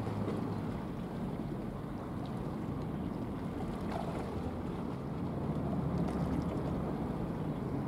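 Steady low rumble of wind on the microphone, mixed with the distant engines of a large bulk carrier and its assisting tugboats.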